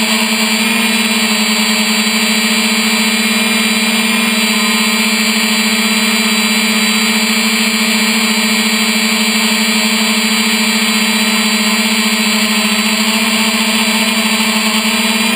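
3DR Iris+ quadcopter's electric motors and propellers running in flight, heard from the camera on board: a loud, steady buzzing hum that holds one pitch, over the hiss of the propellers.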